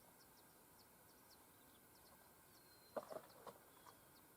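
Quiet outdoor ambience with faint, short high chirps of small birds repeating throughout, and a brief cluster of clicks about three seconds in.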